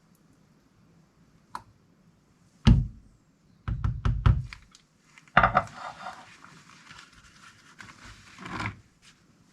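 Soap-making containers and utensils handled on a work surface: a click, a heavy thud, a quick cluster of knocks and another thud. Then about three seconds of rough scraping and rustling.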